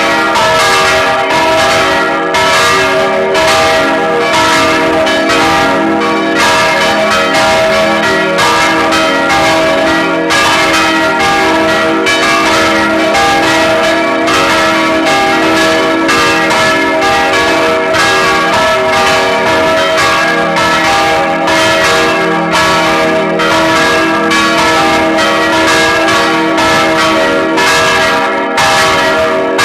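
Full peal of four church bells ringing together: three baroque bells cast in 1788 by Anselm Speck of Heidelberg and a small bell from 1988. Their strikes overlap continuously, without a pause, over a dense chord of ringing tones.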